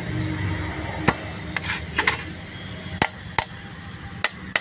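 Sharp metallic clicks and taps, about nine, irregularly spaced, as hand tools and parts knock against a truck gearbox's casing and top cover during reassembly, over a low steady hum.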